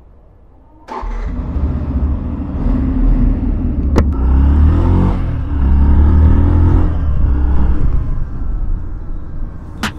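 Yamaha FZS V3's 149 cc single-cylinder motorcycle engine starting about a second in, then running with its note rising and falling as it is revved. A sharp click about four seconds in.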